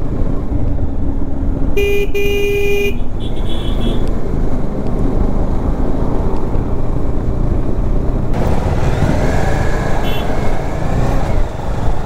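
Motorcycle engine running with steady road and riding noise, from a Bajaj Dominar 400 on the move. About two seconds in a vehicle horn sounds, a short toot then a longer one of about a second. From about eight seconds in the rushing noise turns brighter and hissier.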